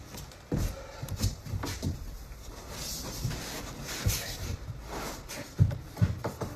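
Handling noise: an irregular series of knocks, taps and rubs as equipment is moved and set down, with two sharper knocks near the end.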